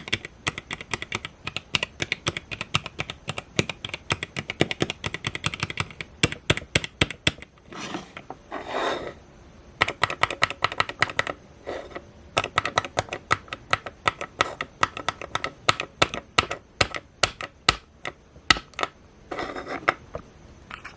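Typing on a small mechanical keyboard with a 3D-printed case: a fast, uneven run of key clicks with a pause or two. A few short swishing noises break in, the longest about 8 seconds in.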